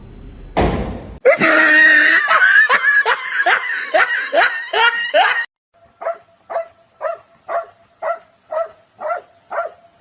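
A short rush of noise, then about four seconds of rapid, high rising cries like laughter, then a dog barking evenly about twice a second from about six seconds in.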